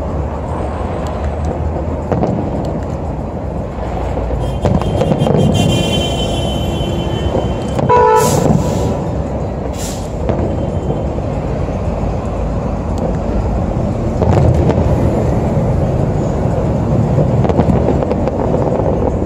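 Fireworks display bursting in a continuous barrage of booms and rumble. A brief horn-like tone sounds about five to seven seconds in, and two sharp cracks stand out around eight and ten seconds in.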